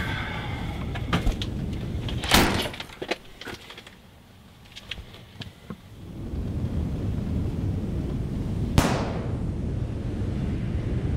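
Thuds and knocks of a struggle at a door, the loudest about two seconds in, then a quieter stretch. A low rumble swells up after that, with a single sharp hit near the end.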